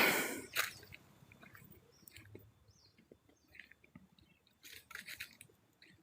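Rustling and crunching, loudest in a burst right at the start, then scattered small crackles, with another cluster of rustles about five seconds in.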